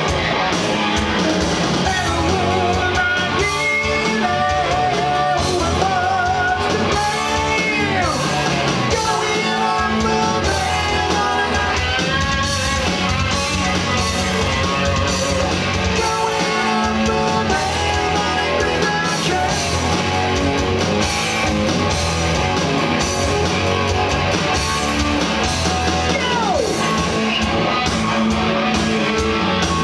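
Live heavy metal performance: electric guitar with a man singing over it.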